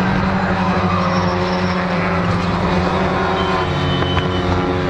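Engines of two touring race cars running hard as they pass nose to tail, one loud, steady engine note.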